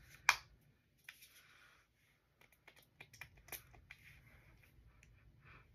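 Small plastic clicks and taps from handling a Scentbird perfume atomizer case: one sharp click about a quarter second in, then a scatter of lighter clicks, thickest about three to four seconds in.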